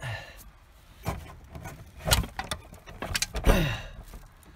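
Truck cab window being worked open by hand: a series of knocks and clunks, with a creak that falls in pitch about three and a half seconds in.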